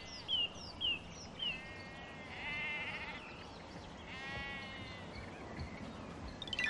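A bird repeats a short falling chirp about twice a second, then a sheep bleats twice, each bleat about a second long with a wavering pitch.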